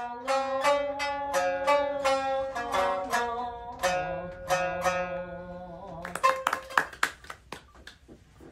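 Traditional Japanese plucked-string music: single picked notes at about three or four a second over a held low note, then a run of sharp clicks near the end.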